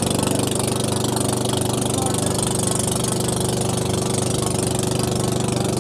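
Boat engine running steadily at an even pace, with a fast, regular firing beat.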